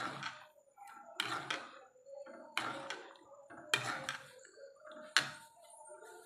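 Metal ladle stirring thick potato masala gravy in an aluminium pan, scraping the pan about every second and a half, with two sharper clinks of the ladle against the metal in the second half.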